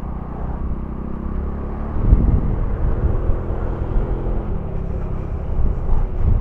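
Honda Foresight 250 maxi scooter's single-cylinder engine running under way, heard through a helmet camera with low wind rumble. It gets louder from about two seconds in.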